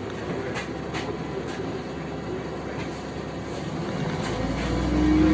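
Interior of a LiAZ-5292.65 city bus: the engine runs steadily with a few light clicks, then about four seconds in it gets louder, with a rising hum, as the bus pulls away.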